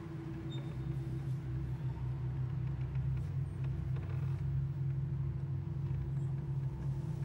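A low, steady droning hum with a fluttering rumble beneath it.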